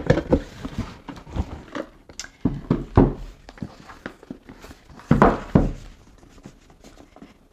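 A cardboard product box being handled on a tabletop: the inner box sliding out of its sleeve with rustling and scraping, and scattered light knocks as it is turned and set down.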